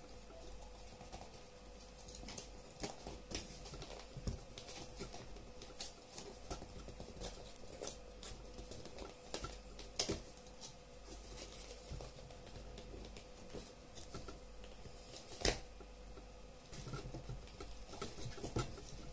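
Plastic ear-muff cup being handled and fitted by hand: irregular small clicks, taps and scrapes, with a sharper click about ten seconds in and the loudest one about fifteen seconds in. A faint steady hum runs underneath.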